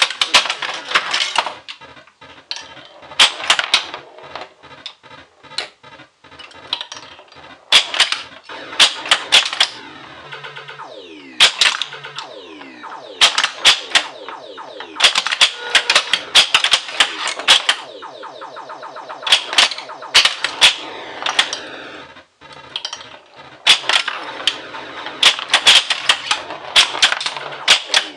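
1980 Williams Black Knight pinball machine in play: irregular bursts of sharp mechanical clacks from the flippers, bumpers and targets, mixed with the game's electronic sound effects, including tones that fall in pitch.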